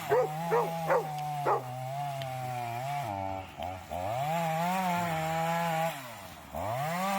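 Chainsaw running steadily while cutting a tree, its engine pitch dropping sharply twice and picking back up. A dog barks four times near the start.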